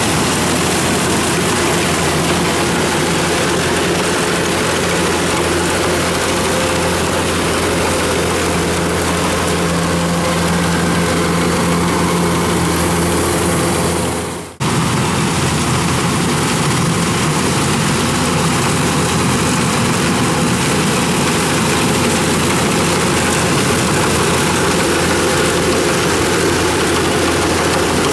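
Kubota DC-105X combine harvester's diesel engine and threshing machinery running steadily under load as it cuts rice. About halfway through, the sound fades briefly and then cuts straight back in.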